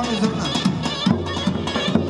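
Traditional folk dance music with a wind-instrument melody over a regular drum beat; the drum strokes stand out from about a second in.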